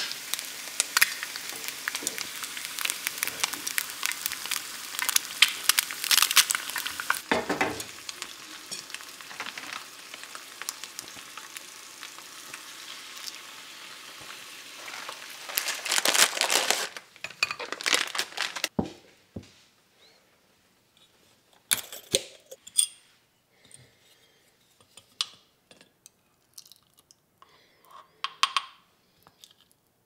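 An egg frying in a small nonstick pan, a steady crackling sizzle with spitting pops, for about the first fifteen seconds. Then a plastic bag crinkles loudly, followed by scattered light clicks and taps of a plate, spoon and glass jar.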